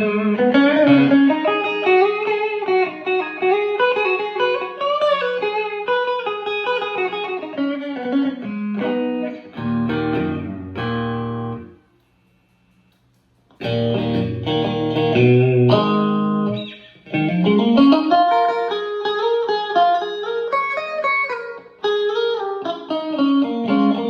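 Electric guitar on its middle pickup position, played through a Fender Blues Junior tube amp: single-note melodic lines and chords, really loud. The playing stops for about a second and a half about halfway through, then resumes with chords and more lead lines.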